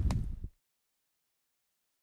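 Outdoor noise from the fishing scene, a low rumble with water sloshing, cuts off abruptly about half a second in, leaving dead silence for the rest.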